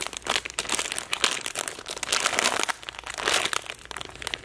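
Clear plastic packaging bag crinkling as it is handled, a rapid, uneven run of sharp crackles.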